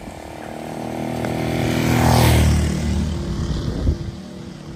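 A motor vehicle passes close by: its engine grows louder to a peak about two seconds in, then drops in pitch and fades away.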